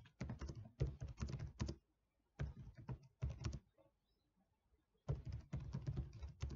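Typing on a computer keyboard: quick runs of keystrokes, broken by two short pauses, the longer one about a second and a half past the middle, before the typing picks up again.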